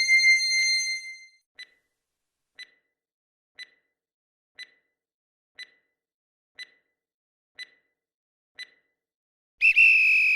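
Countdown-timer sound effect: a bright chime fades out, then a clock-like tick sounds once a second, eight times, and near the end a loud high-pitched buzzer-like tone sounds for about a second as time runs out.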